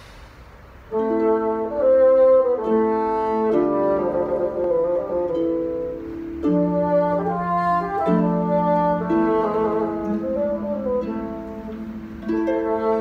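Bassoon playing a Baroque melody in sustained and moving notes, accompanied by plucked harp, starting about a second in.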